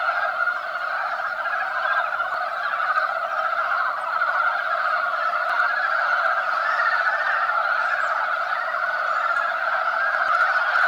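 A dense breeding chorus of male Korean brown frogs, many voices overlapping into one continuous, steady chorus of low croaks.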